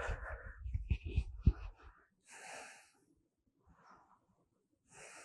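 A person breathing out heavily close to the microphone, twice, while resting after a yoga stretch. In the first two seconds there are soft bumps and rustling from body movement.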